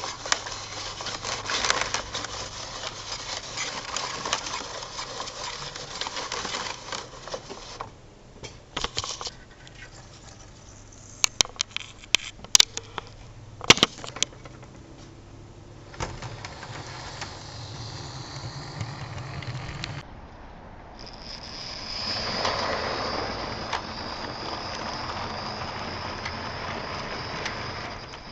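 Model railway sounds: a cluster of sharp clicks, then a model freight train rolling on its track, a steady rolling rattle with a thin high whine over the last several seconds.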